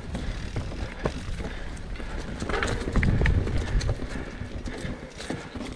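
Mountain bike riding over a rooty dirt trail: knobby tyres rolling over leaves and soil, with a rapid clatter of knocks and rattles from the bike as it hits roots and rocks, and a low rumble that is loudest about halfway through.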